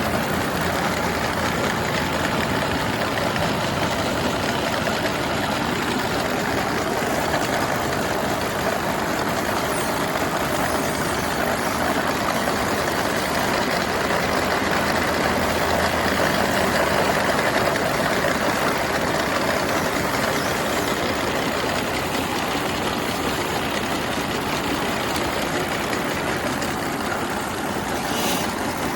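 Farm feed-processing machine running steadily: a dense, unbroken mechanical noise that swells a little about halfway through.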